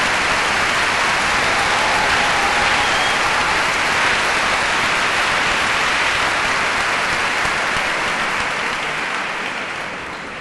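Audience applause, steady and dense, dying away near the end.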